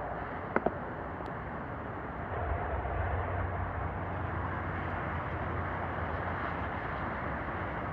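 Outdoor background noise with a low engine rumble that comes in about two seconds in and holds steady. There are two short clicks about half a second in.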